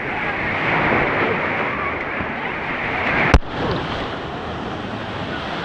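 Wave pool ambience: steady wash of churning, splashing water with many swimmers' voices and shouts mixed in. A single sharp click about three seconds in.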